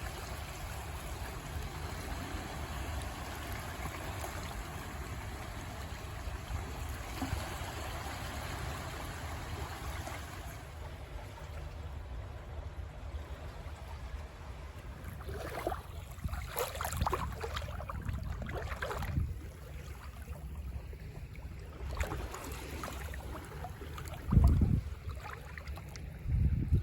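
Sea waves washing on the shore with wind rumbling on the microphone, with two loud low thumps near the end.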